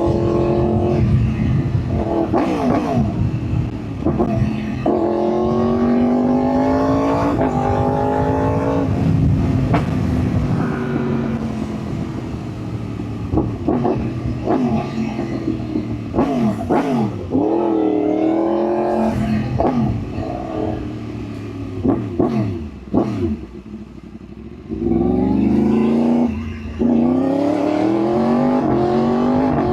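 Yamaha R1 sportbike's inline-four engine pulling hard through the gears: the pitch climbs and drops back at each upshift, with shorter rev rises and falls between. It eases off to a quieter spell about three-quarters of the way through, then pulls hard again.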